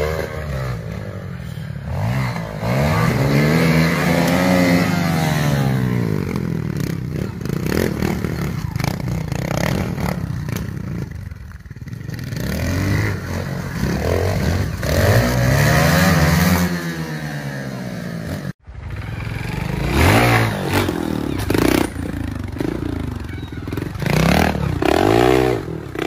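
Trials motorcycle engines revving in repeated throttle blips, the pitch rising and falling with each burst as the bikes are ridden over obstacles. The sound cuts out briefly about two-thirds of the way through, then comes back as shorter, quicker blips.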